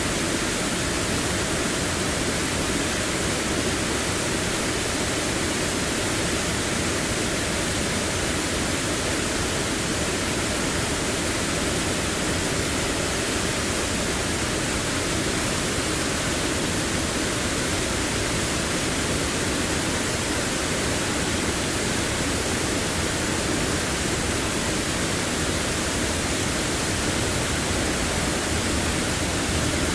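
Waterfall rushing, an unbroken wash of falling water with no other events standing out.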